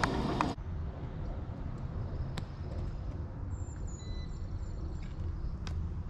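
Outdoor ambience dominated by a steady low rumble of wind on the microphone, after a louder rush of noise that cuts off abruptly about half a second in. A few faint bird chirps come about four seconds in.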